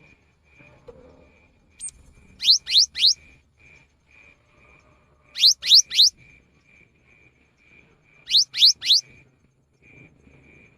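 Cinereous tit (gelatik batu) singing: three times, a phrase of three quick rising whistled notes, the phrases about three seconds apart. Under the song, a faint short peep repeats about twice a second.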